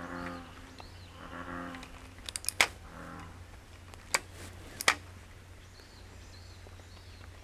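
Low animal calls, repeated as about three short droning notes over the first three seconds. Several sharp clicks are the loudest sounds: a quick cluster about two and a half seconds in, then single clicks at about four and five seconds.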